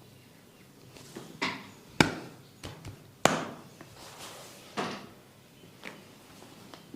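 Percussive massage strokes landing on the body: about six sharp blows at uneven intervals, the two loudest about two and three seconds in.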